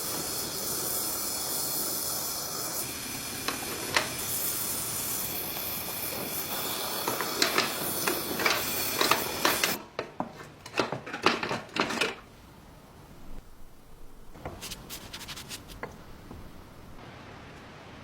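Steady rubbing hiss from work on a metal gas cylinder for about ten seconds, then a cluster of sharp clicks and knocks, after which it goes much quieter.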